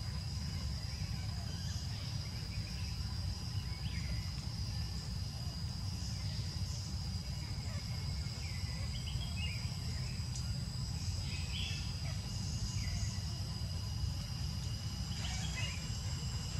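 Forest ambience: a steady, high insect drone over a low, constant rumble, with short bird chirps coming every few seconds.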